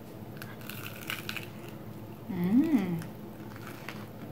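Chewing a crisp breaded, deep-fried mozzarella stick: scattered crunchy bites and mouth clicks. About two and a half seconds in comes one short hummed "mmm" that rises and falls in pitch.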